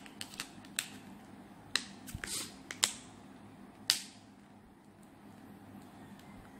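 Sharp plastic clicks and a short scrape as a clear phone case is handled and snapped onto a smartphone: several clicks over the first four seconds, the loudest near four seconds in, then only faint handling.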